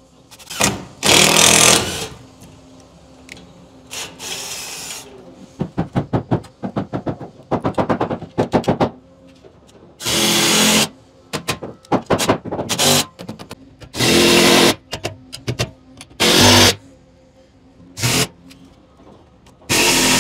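Cordless impact driver or drill driving screws in a string of short whirring bursts, each under a second, with a run of quick rattling taps between about six and nine seconds in.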